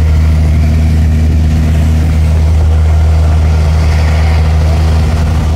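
Snowcat's diesel engine running steadily at a low, even hum as it tows a line of skiers uphill on a rope.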